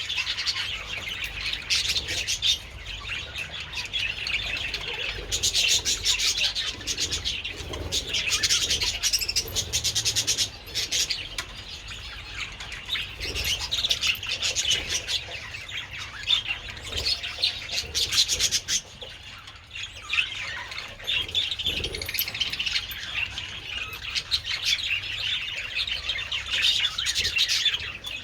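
A flock of budgerigars chattering continuously, a dense warbling mix of chirps and harsh squawks with many birds calling at once.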